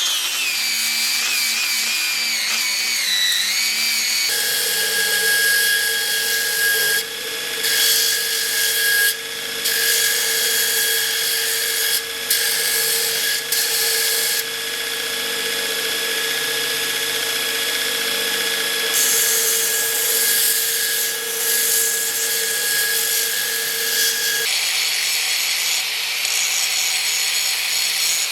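Electric power tool running continuously while working the sword guard, with a high hiss over its motor tone. The pitch wavers for the first few seconds, then holds steady, and shifts lower about 24 seconds in.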